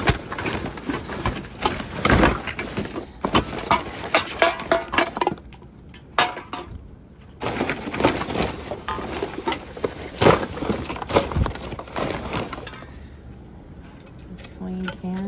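Rummaging through a garbage bin: plastic bags, cardboard egg cartons and packaging crackling and rustling as they are pulled and pushed aside, with occasional clinks, in quick irregular bursts that ease off twice, about six seconds in and again near the end.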